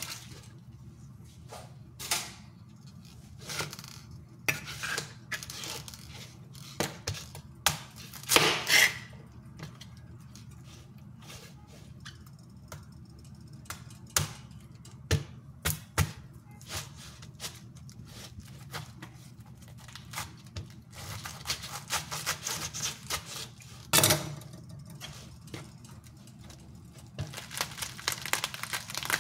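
Crisp red cabbage leaves being torn and peeled off the head by hand, with irregular crunching, crackling and sharp knocks against a plastic cutting board. Near the end a denser run of crackling as the cut head is pulled apart.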